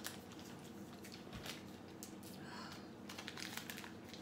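Faint crinkling and clicking of plastic candy wrappers being handled and folded, with the crackles coming thicker near the end.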